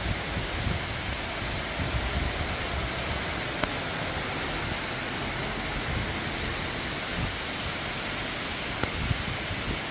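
Steady heavy rain, an even dense hiss, with a couple of sharp drip ticks.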